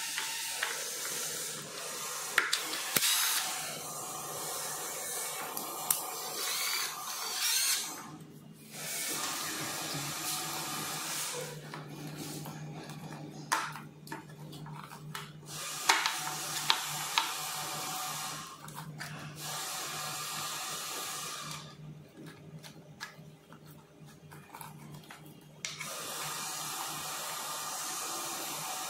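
Cordless drill-driver running in repeated runs of a few seconds each, driving out the scooter deck's screws. Short clicks and knocks of handled metal parts come in the gaps between runs.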